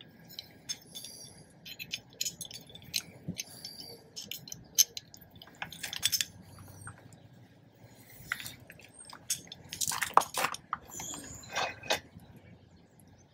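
Metal roof-rack parts being handled: brackets, bolts and nuts clinking and clicking against each other in a string of short, irregular knocks, busiest about six seconds in and again near the end.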